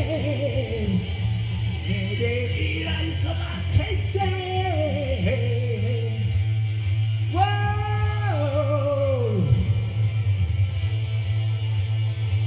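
A man singing a rock song into a microphone with electric guitar over a steady low bass line and a regular ticking beat. About seven seconds in he holds a long note, steps it down and slides it away about two seconds later.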